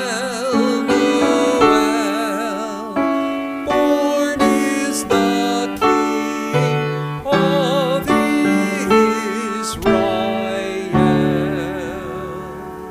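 Church hymn sung with piano accompaniment: voices with vibrato over piano chords struck in a steady beat, ending on a held chord that fades.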